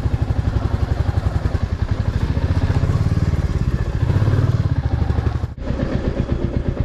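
Motorcycle engine running at low revs, a steady rapid low pulsing as the bike creeps along at walking pace, with a brief drop-out about five and a half seconds in.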